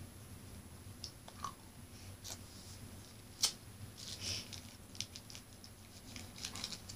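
Faint rustling and small scattered clicks as hair is gathered and tied back with an elastic, with one sharper click about three and a half seconds in.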